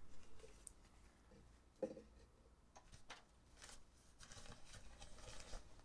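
Faint rustling of a thin fabric stuff sack as it is pulled out of a stainless steel pot and handled, with a soft bump about two seconds in.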